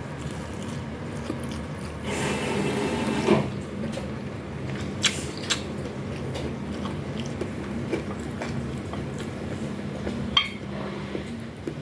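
Close-up eating sounds: biting and chewing of fried food, with a crunchy stretch a couple of seconds in and a few sharp clicks later, over a steady low hum.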